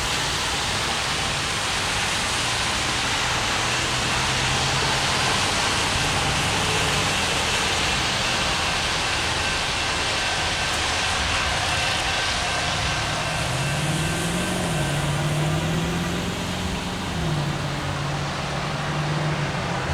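Approaching freight train led by two GE diesel locomotives, a UP C44ACM and a UP ES44AC: a low engine drone over a steady hiss. The drone wavers up and down in pitch over the last few seconds.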